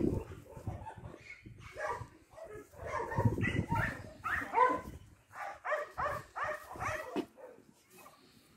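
Dog giving a string of short, high yelping barks, each falling in pitch, about a dozen in two quick runs, after a low rumble at the very start.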